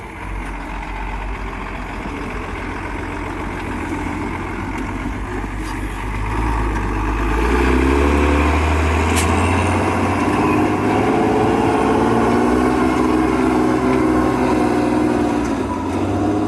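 Ural 6x6 truck engine running, working harder and louder from about seven seconds in as it pulls under load, with a single sharp click partway through.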